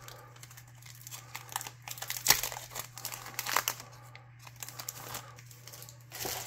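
Plastic wrapper of an Upper Deck hockey card pack crinkling and tearing as it is opened and handled, in irregular rustles, the loudest a little over two seconds in and again about three and a half seconds in.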